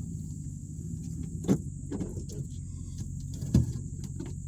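Dodge Ram pickup's engine running with a low, steady rumble, heard from inside the cab as the truck moves slowly off-road. Two sharp knocks stand out, about a second and a half in and again near the end.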